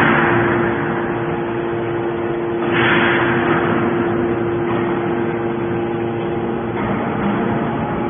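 Hydraulic scrap-metal baler running: a steady hum from its hydraulic power unit, with a louder rushing swell about three seconds in and a fainter one near the end as the press cycles on a bale of metal turnings.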